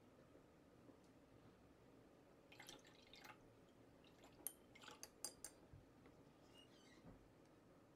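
A paintbrush being rinsed in a jar of water: faint swishing about two and a half seconds in, then several light clinks with a brief ring against the jar.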